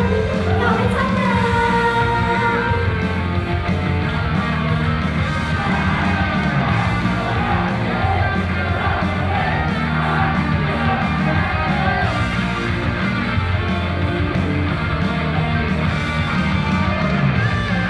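Live idol-group pop song played loud over the stage sound system, with female singing over a steady beat and bass line.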